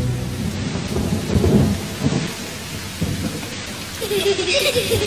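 Steady rain with low rumbles of thunder, the loudest about a second and a half in; a wavering pitched tone comes in near the end.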